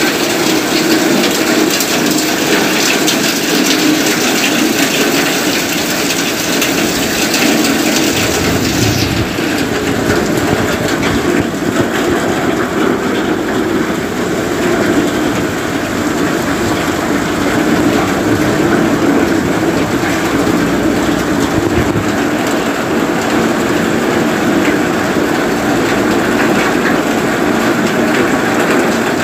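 Heavy rain pouring down onto a wet, flooded street, a steady dense hiss that turns duller about nine seconds in, with a low rumble at that point and another later on.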